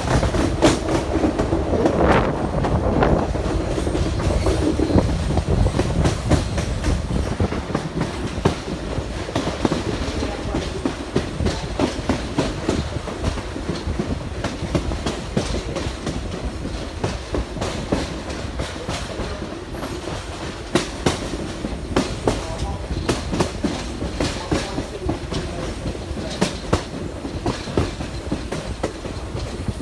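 Railroad cars rolling on track, the wheels clicking over rail joints above a steady low rumble.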